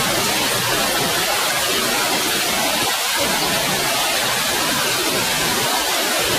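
Small waterfall cascading over boulders into a rock pool, a steady, even rush of water.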